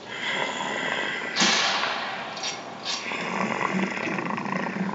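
A single rifle shot about one and a half seconds in, its report dying away over about a second, over a steady noisy background, with two short sharp clicks about a second later.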